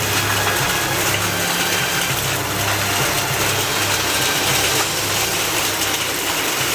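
Heavy rain mixed with hail pouring down in a steady, even hiss, with a low steady hum underneath.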